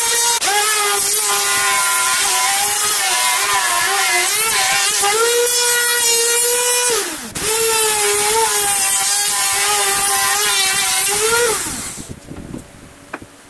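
Makita trim router running at full speed, cutting a circular groove in a wooden board: a high whine that wavers in pitch as the bit works through the cut. About seven seconds in the pitch drops sharply and recovers. Near the end the motor is switched off and winds down.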